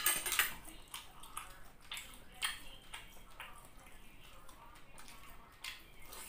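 Close-miked mouth sounds of eating chicken on the bone by hand: chewing and wet smacking, with sharp clicks now and then, the loudest right at the start.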